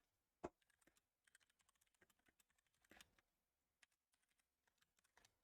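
Faint computer keyboard keystrokes and clicks, scattered and irregular, with one sharper click about half a second in and a short run of keys around three seconds.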